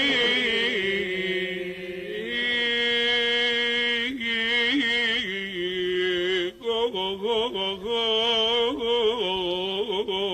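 A male Sufi praise singer's voice drawing out long melismatic notes, held with vibrato and winding up and down in pitch, with no clear words.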